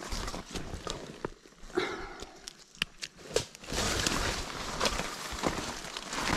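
Rustling of leaves and undergrowth, with footsteps and scattered sharp snaps and clicks. The rustle grows denser about four seconds in.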